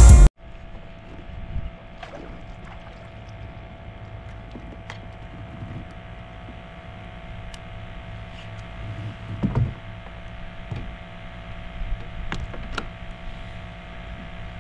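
Music cuts off right at the start, leaving the sound of a fishing kayak on the water: a steady low rumble with a thin steady hum, and a few light knocks and clicks against the hull.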